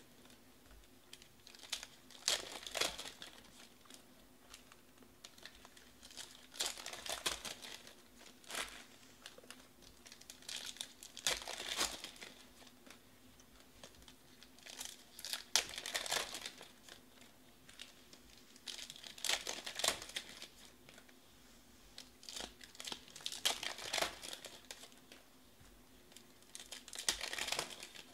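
Plastic wrappers of Panini Select baseball card packs being torn open and crinkled by hand, a burst of crackling about every four seconds as pack after pack is opened.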